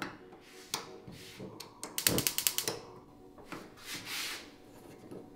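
Gas cooktop burner's spark igniter clicking in a rapid ticking run as the knob is turned, followed by a short hiss as the burner lights.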